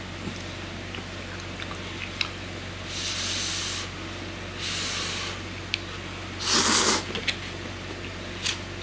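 A person slurping instant cup noodles with broth: four short airy slurps a second or two apart, the third the loudest, with a few faint small clicks between them.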